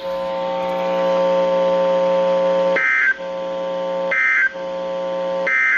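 Emergency Alert System end-of-message signal: three short, shrill digital data bursts about a second and a half apart, over a steady electronic buzz.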